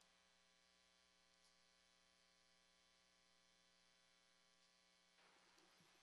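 Near silence with a faint, steady electrical mains hum. A faint hiss comes up near the end.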